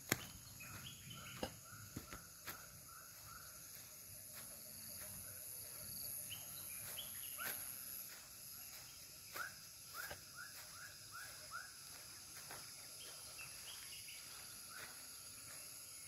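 A bird calling in runs of short repeated chirps, about two a second, over a steady high-pitched insect drone. A few sharp clicks stand out from time to time.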